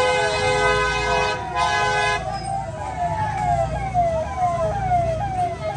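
Electronic siren on a vehicle, its pitch sweeping down again and again, two to three times a second. A steady horn note sounds over it and stops about two seconds in, with low engine and traffic rumble underneath.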